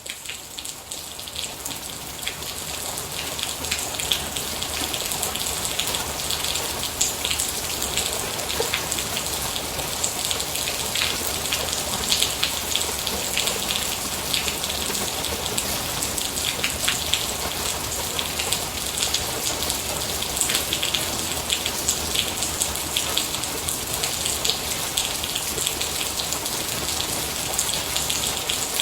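Steady rain with many separate, sharp drop hits, fading up from silence over the first few seconds and then holding a constant level.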